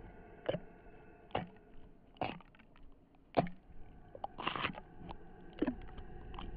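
Dark ambient soundtrack: a steady low drone with short, sharp hits about once a second.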